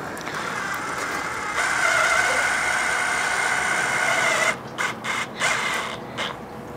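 DeWalt cordless drill driving a screw into a silicone-filled hole in a fiberglass boat hull. The motor runs with a steady whine that gets louder about one and a half seconds in, stops about four and a half seconds in, then gives a few short bursts.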